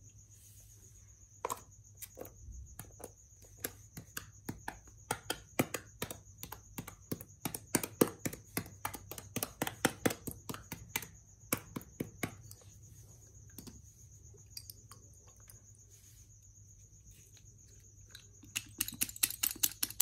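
Clear slime mixed with makeup being kneaded and squeezed by hand, giving rapid wet clicks and pops in dense clusters. The clicking thins out about two-thirds of the way in, then picks up again in a quick flurry near the end. A faint, steady high-pitched whine sits underneath.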